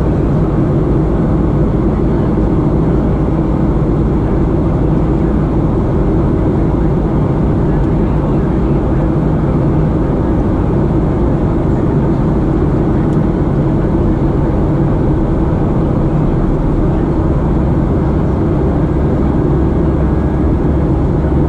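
Steady cabin noise of a Boeing 737-700 in flight: its CFM56-7B jet engines running under climb power together with airflow rush, heard from a window seat beside the engine.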